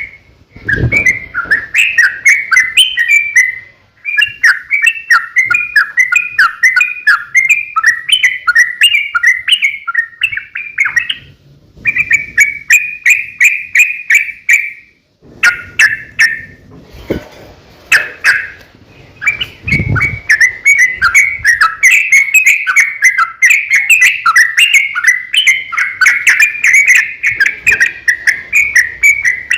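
Yellow-vented bulbul singing in long, rapid runs of bubbly chirping phrases, nearly without pause, with brief breaks now and then. A few low thumps sound under the song.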